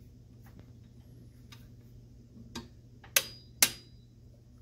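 Click-type torque wrench clicking as it reaches its set torque on a turbo pedestal bolt: a couple of light clicks, then two sharp metallic clicks about half a second apart, over a steady low hum.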